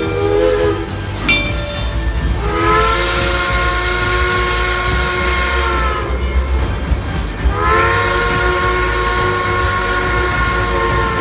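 Steam locomotive whistle blowing two long blasts of about four seconds each over a hiss of steam. Each blast bends up in pitch as it starts and sags as it ends.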